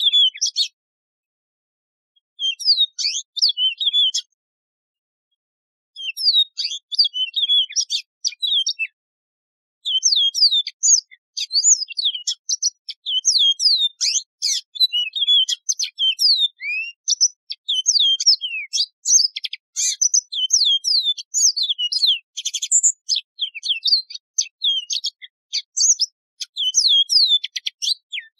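Yellow-fronted canary (Mozambique serin) singing: a fast, high warbling song of slurred, sweeping notes. The first ten seconds come in short phrases broken by pauses of about two seconds, and from about ten seconds in the song runs on without a break.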